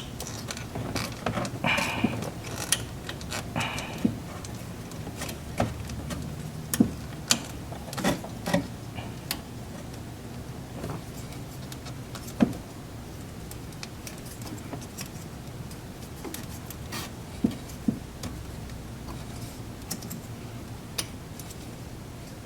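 Irregular light clicks and clinks of tools and small metal parts being handled while brackets and cables are refitted, most frequent in the first half and sparse later, over a faint steady low hum.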